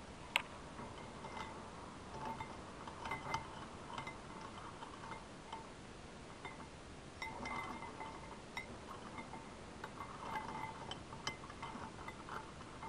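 A utensil irregularly clinking against a shallow glass dish as it stirs a liquid, the glass ringing briefly after the louder knocks.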